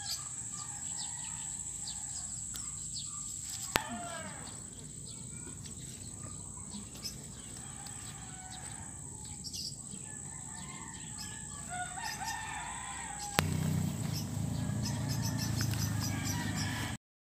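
Rooster crowing in the background over a steady high-pitched hiss. Two sharp clicks, one about four seconds in and one about thirteen seconds in; after the second, a low rumble comes up.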